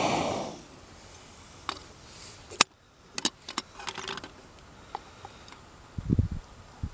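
Aluminium camping kettle being lifted off a gas stove after boiling: a brief hiss at the start, then a series of light metallic clinks from its handle and lid, and a few dull low thumps near the end.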